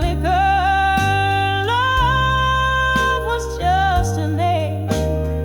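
Slow blues-soul music: a lead melody of long held notes with a slow waver, over low bass notes that shift every second or so.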